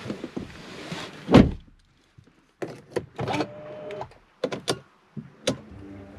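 A car door shutting with one heavy low thump about a second and a half in, followed by a series of short clicks and knocks inside the car's cabin.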